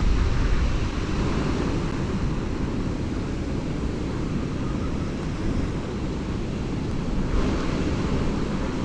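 Strong wind buffeting the microphone: a steady rushing noise with a heavy low rumble.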